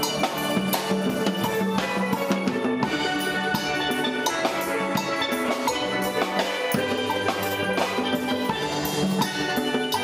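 A steel band playing: many steel pans at different pitches struck in a quick, busy rhythm, with low notes sounding underneath.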